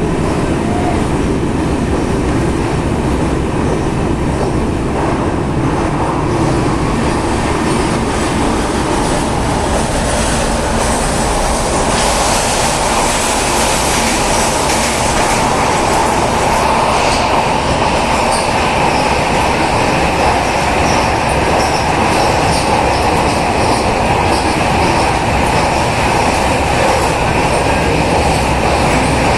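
Passenger train running through a mountain tunnel, heard from inside the coach: a loud, steady rumble and rattle of wheels on rail. The sound turns brighter about twelve seconds in, and a steady high wheel squeal joins past the middle.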